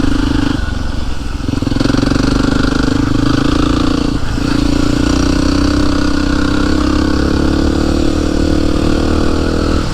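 Yamaha WR motorcycle engine running under way with a steady note, dipping briefly about a second in and again around four seconds before picking back up.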